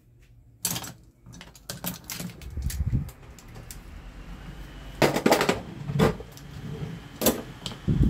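Ventisol 30 cm table fan switched on with a click about a second in, its motor spinning the blades up into a steady airflow hiss with a faint whine, running freely on its freshly lubricated bushings. The loudest sounds are several sharp clicks and knocks a little past the middle.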